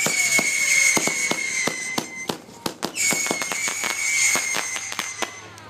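Fireworks: two long, high whistles, each lasting about two seconds with the pitch sinking slightly, the second starting about three seconds in, over a constant crackle of sharp pops and bangs.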